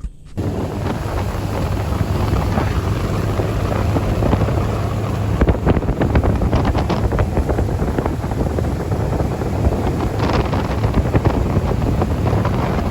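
A motorboat's engine running steadily as the boat travels at speed, with wind buffeting the microphone. It comes in suddenly at the start.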